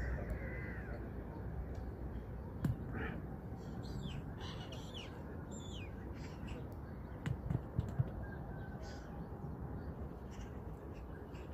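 A flock of birds calling over open water: many short high calls scattered throughout, over a low steady rumble. A few sharp knocks, the loudest sounds, come about three seconds in and again around seven to eight seconds in.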